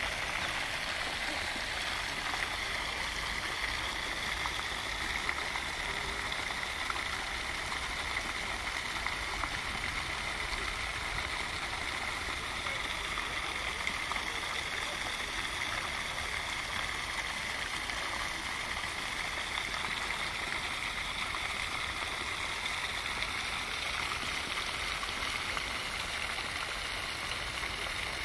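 A steady, even rush of running water.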